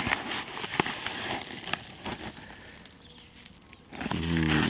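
A gloved hand rummaging in a stiff paper bag of granular blood meal: the paper crinkles and the granules rustle and crackle, dying away about three seconds in.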